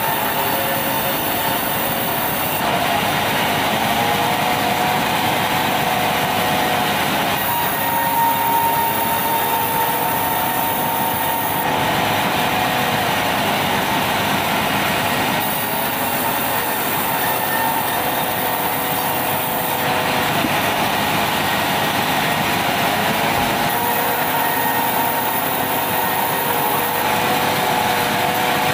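Large sawmill band saw running and cutting red meranti timber: a steady sawing noise with faint high-pitched tones that come and go, the sound changing every few seconds as the wood is fed through.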